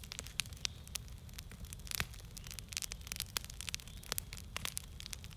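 Wood fire crackling in an outdoor fire pit: a steady low hiss of flame broken by many irregular sharp pops, the loudest about two seconds in.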